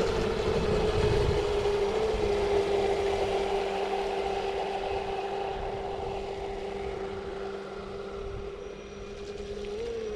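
Traxxas M41 radio-controlled speed boat's brushless electric motor running at part throttle on a 4S battery: a steady whine that grows fainter as the boat pulls away across the water, with a brief rise in pitch near the end.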